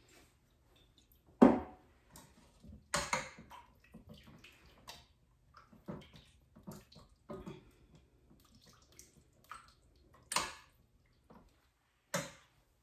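Metal tongs stirring and scraping chicken stock around a stainless steel pan: scattered clinks and liquid sloshing, with one sharper knock about one and a half seconds in.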